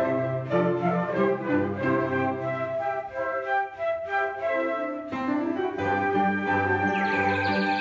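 Flute ensemble with cellos playing, several flutes in harmony over a cello bass line; a brighter, higher line joins near the end.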